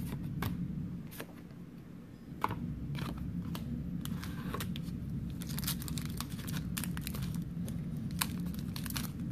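A few sharp clicks as trading cards are flicked in the hand. Then, from about two and a half seconds in, a foil Pokémon booster pack is crinkled and torn open by hand, the crackling growing busier in the second half.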